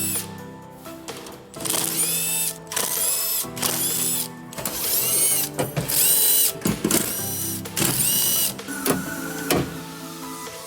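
Handheld cordless power tool, such as an electric ratchet or drill-driver, whining in about eight short bursts of under a second each, its pitch shifting within each burst as it spins fasteners, with background music underneath.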